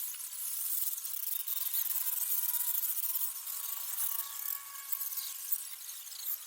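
Chickens in a poultry house calling over a steady high hiss, with several thin wavering calls overlapping.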